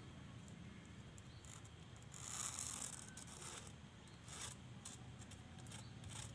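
Faint, short scraping and rubbing sounds of hand work on a coconut-shell piece, the loudest about two seconds in, over a low steady hum.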